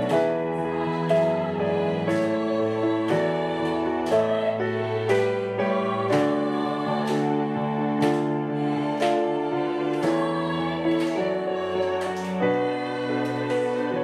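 Women's choir singing a hymn in Korean, with piano chords struck about once a second beneath the sustained sung notes.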